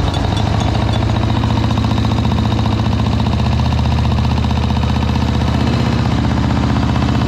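1987 Harley-Davidson Sportster's air-cooled V-twin engine idling steadily just after being started for the first time in a long while. It sounds rough enough that the family takes it to be low on oil.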